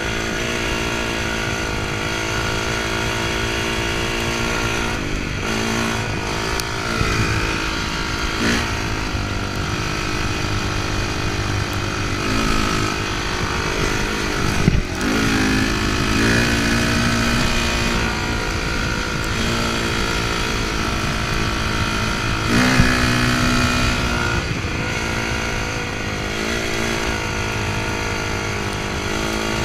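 Off-road enduro motorcycle engine running under way, its pitch dropping and climbing several times as the throttle is rolled off and on. Two brief thumps stand out, about halfway and about three quarters through.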